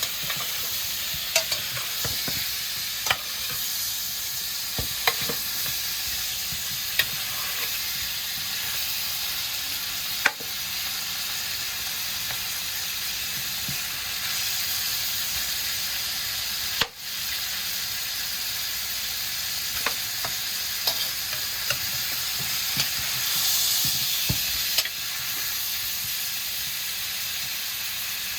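Smoked turkey necks sizzling steadily in melted butter in a pot, with a spoon stirring and clicking against the pot now and then.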